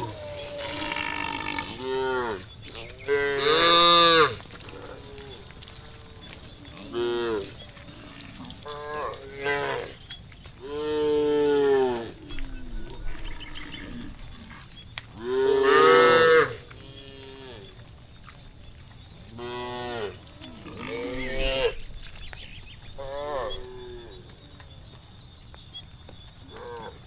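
Cattle mooing repeatedly, about a dozen separate calls that rise and fall in pitch, some short and some drawn out, with the loudest and longest near the middle, over a steady high hiss.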